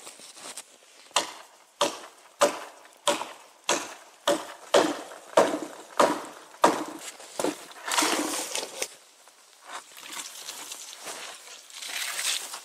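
Hatchet chopping through a small tree trunk: about a dozen sharp strokes in a steady rhythm, roughly one every two-thirds of a second. Near the end they give way to longer rustling and crunching as the cut trunk is handled and dragged through snow.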